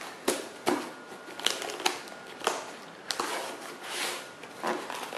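A knife blade slitting the packing tape on a cardboard shipping box: a string of short, sharp crackling and scraping strokes, irregularly spaced about every half second.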